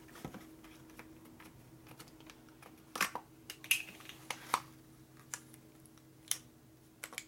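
Scattered light clicks and taps of small things being handled, bunched about three to four and a half seconds in and again near the end, over a faint steady hum.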